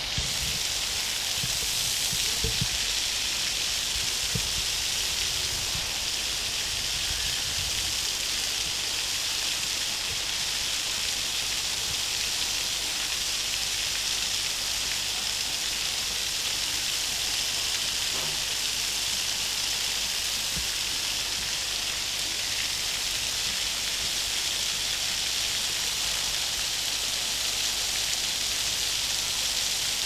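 Small artificial waterfall pouring off a rock feature into a pond, a steady splashing hiss.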